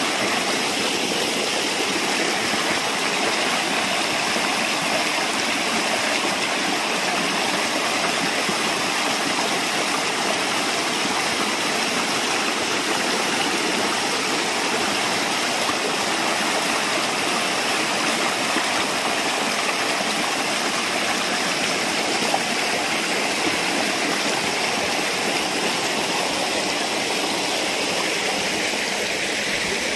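Shallow rocky stream running over boulders and stones in small cascades: a steady rush of water.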